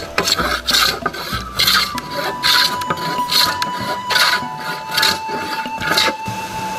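Wooden hand plane shaving a small block of wood in repeated push strokes, about one stroke a second, each a short rasping hiss.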